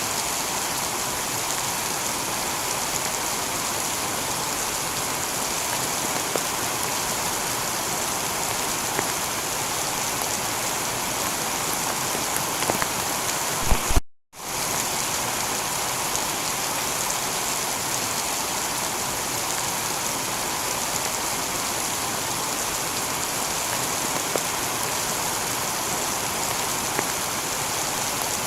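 Steady heavy rain falling on a tiled roof, an even hiss with scattered drops. About halfway through, a few louder drops are followed by the rain cutting out completely for a fraction of a second before it resumes unchanged.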